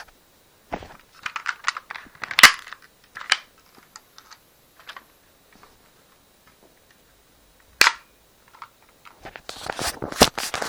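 Sharp plastic clicks and clacks from a spring-powered airsoft pistol being handled. The loudest crack comes about two and a half seconds in, another lone one near eight seconds, and a run of clicks near the end.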